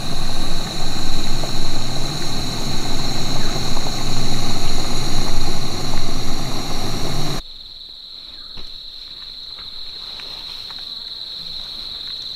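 Portable gas stove burning under a stainless steel pot: a loud, steady rushing roar that cuts off abruptly about seven seconds in. A steady high-pitched insect chorus runs underneath throughout and is left on its own at the end.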